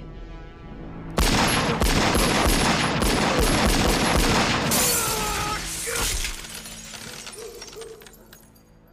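Movie gunfire: a sudden barrage of rapid pistol shots, mixed with glass shattering, breaks out about a second in. It lasts about five seconds, then dies away.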